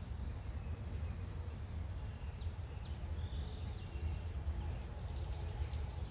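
Faint woodland birds calling, a few short chirps and a thin held whistle about halfway through, over a steady low rumble on the microphone.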